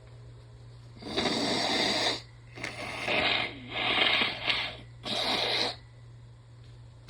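A woman breathing hard during a sneezing fit: four long, noisy breaths of about a second each, with no voice in them.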